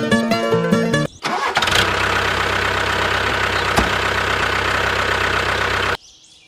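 Plucked-string background music, then about a second in a vehicle engine starts and runs steadily with a low, even pulse for about five seconds before cutting off suddenly.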